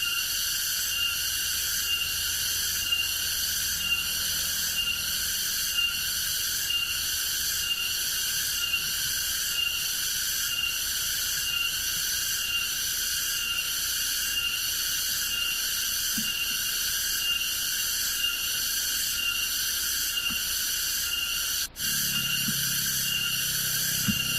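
Forest insect chorus: a steady high-pitched trilling in several layers, pulsing evenly a little over once a second. About 22 s in it cuts out for a moment, and a faint low hum joins when it resumes.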